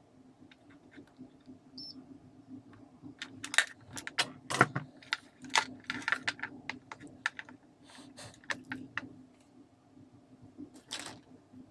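Irregular sharp clicks and taps of small plastic and metal parts being handled, busiest a few seconds in and again near the end, over a faint steady low hum.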